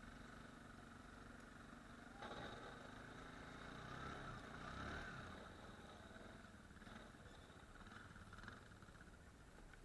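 ATV engine running faintly while plowing snow, swelling louder for a few seconds from about two seconds in before settling back to a steady hum.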